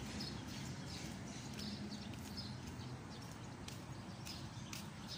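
Faint background ambience: a low steady hum with a few faint high bird chirps and light ticks.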